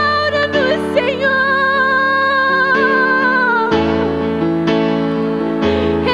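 A woman singing solo over sustained electric piano chords. After about a second she holds one long note with vibrato for a couple of seconds, then slides down off it.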